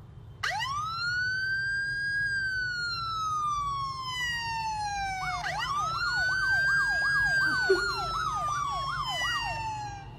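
Siren wailing: a long tone rising, then gliding slowly down over several seconds, then rising again into a fast up-and-down warble of about three cycles a second.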